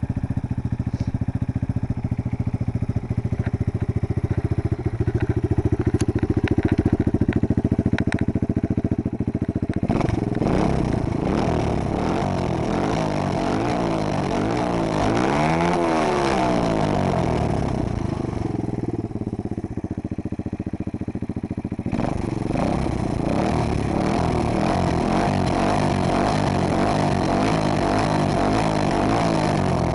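AJP motorcycle engine running: steady at first, then revved from about ten seconds in, with one clear rev that climbs and falls back around the middle. It drops lower for a few seconds, then runs on steadily again near the end.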